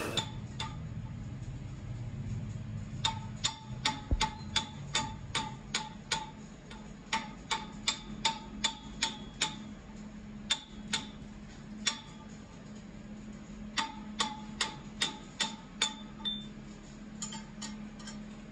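Small hammer tapping a hand chisel against the end of a steel drive-shaft tube, chiselling a strip off its edge: quick light strikes about three a second in runs with short pauses, each with a brief metallic ring. A faint steady low hum underneath.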